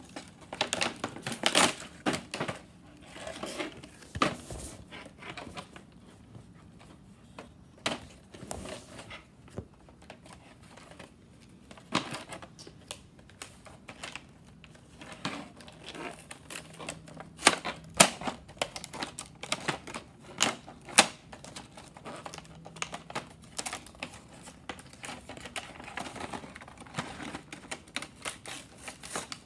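Cardboard box and plastic packaging of a toy train set handled by hand as it is opened: irregular sharp clicks, taps and crinkles of cardboard and plastic, busier near the start and around the middle.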